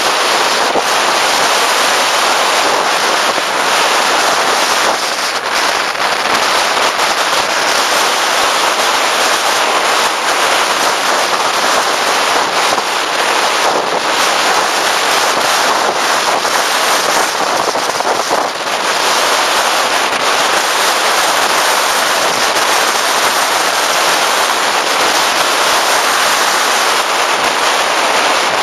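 Steady rush of wind buffeting the microphone of a camera on a moving motorcycle, drowning out the engine.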